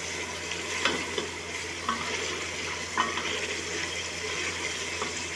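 Beef masala frying in oil in an aluminium pressure-cooker pot, sizzling as a black spatula stirs it. The spatula scrapes and knocks lightly against the pot a few times. The masala is being fried until the tomatoes break down and the oil separates.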